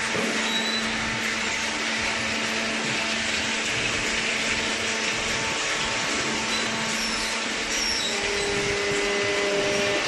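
High-speed hydraulic cardboard baler running: a steady mechanical hiss over a constant low hum. A second, higher hum joins about eight seconds in.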